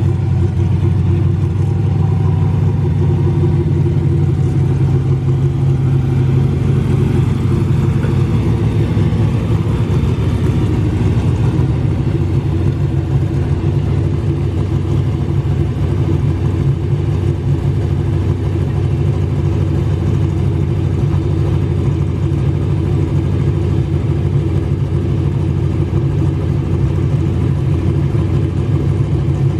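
Car engine running at a steady, loud idle, without revving; its tone shifts slightly about eight seconds in.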